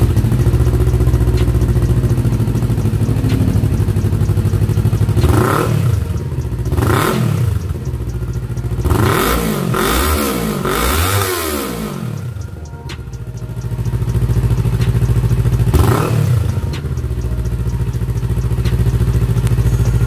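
Kawasaki Ninja 400 parallel-twin engine through a Yoshimura Alpha slip-on exhaust, idling steadily. In the middle it takes a few quick throttle blips, a tight cluster of them among the rest, each rev rising and falling back to idle. It idles again near the end.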